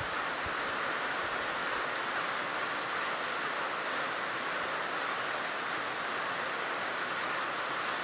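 Steady, even outdoor hiss with no change in level, and no bird calls standing out.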